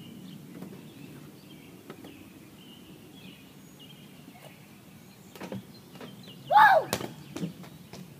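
Quiet outdoor background with a few faint knocks, then about six and a half seconds in a boy's short, loud shout, followed right after by a single sharp knock.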